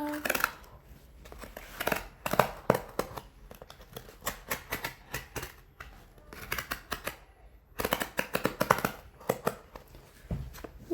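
Packaging being handled and opened, crinkling and rustling in irregular bursts of quick crackles and clicks.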